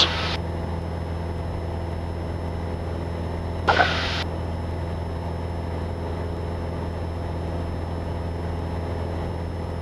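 Cessna 172 Skyhawk's piston engine and propeller droning steadily in cruise, heard inside the cabin. A brief, short noise comes about four seconds in.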